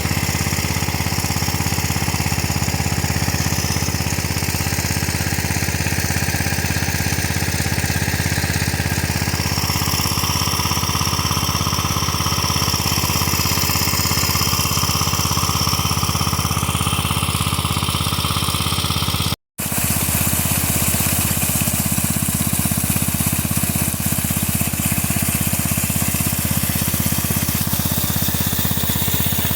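Irrigation pump set's engine running steadily under load, a fast, even chugging, with a brief dropout about two-thirds through.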